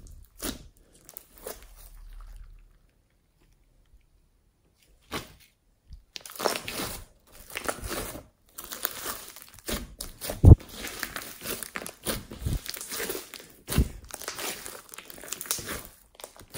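Hands squishing and kneading a large mass of slime packed with foam beads: crunching, crinkling and sharp pops as the slime folds and is pulled apart. It stops for a couple of seconds about three seconds in, then goes on more densely.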